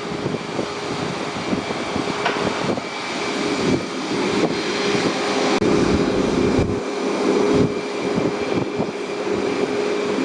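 Boeing 737 MAX 8 jet turbines whining at low power: a steady high tone over a rumble, with wind gusting on the microphone.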